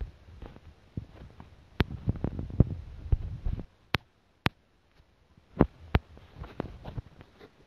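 Handling noise from a phone being held and its screen tapped, picked up by its own microphone: a scatter of sharp clicks and low thumps, with a denser rumbling stretch from about two to three and a half seconds in.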